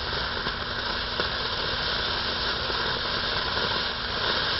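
A lit ground firework burning with a steady hiss as it sprays sparks.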